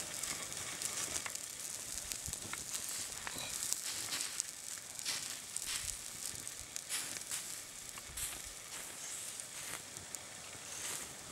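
Rabbit roasting on a spit over hot wood coals: a steady sizzle with many small scattered pops and crackles as juices and basting sauce drip onto the embers.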